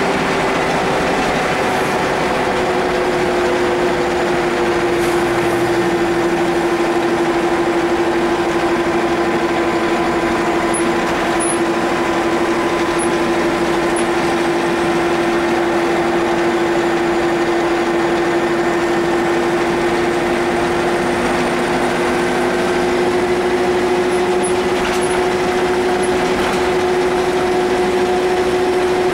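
Karosa C934 bus's Renault MIHR diesel engine and Praga manual gearbox running under way at a steady pace, heard from inside the passenger cabin. A steady droning tone rides over the engine and road noise, dipping slightly in pitch about two seconds in and then holding.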